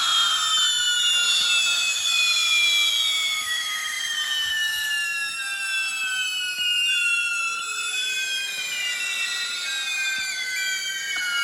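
Several firework whistles sounding together, high overlapping whines that slowly fall in pitch.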